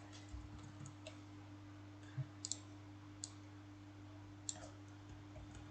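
Scattered, faint computer mouse clicks, about six sharp single clicks a second or so apart, over a steady low electrical hum.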